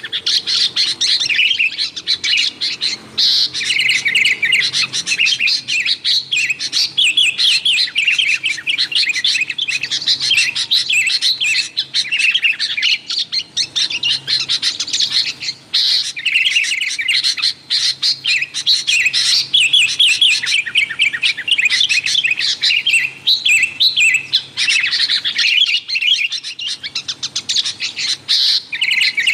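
Sooty-headed bulbul (kutilang) calling in a busy, near-continuous run of quick chirps and whistled notes, the excited chatter used as a lure call to draw in wild bulbuls.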